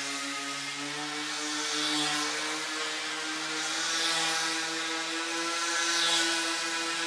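Small RC airplane's motor and propeller whining steadily, the pitch creeping slightly up, with a rushing swell about every two seconds as the tethered plane circles past.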